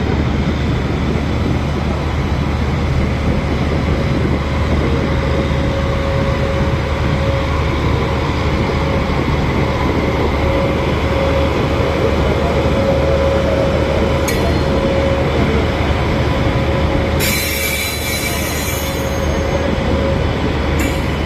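WAP-7 electric locomotive and LHB coaches rolling slowly past on the rails: a steady rumble with a squeal that holds one pitch, loudest midway. A brief hiss comes about 17 seconds in.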